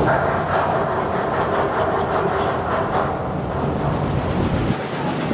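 Cargo ship berthing under its bow thruster and engine: a steady, loud mechanical rumble over churning water at the bow. The low hum drops away near the end.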